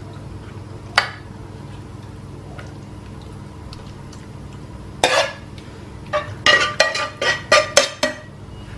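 A metal spoon spreading meat sauce in a glass baking dish, then scraping and knocking against a pot to get the last of the sauce out. A single clink about a second in, a scrape about five seconds in, and a quick run of about eight ringing clinks near the end.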